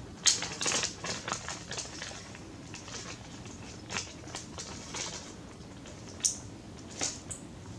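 Small clicks and scratches of an LED's wire leads being handled and pushed into a plastic solderless breadboard: a quick flurry in the first two seconds, then a few isolated ticks.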